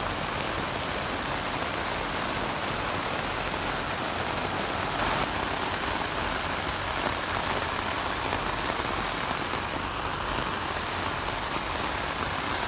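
Steady rain falling on a tent, an even hiss of drops on the fabric with no let-up.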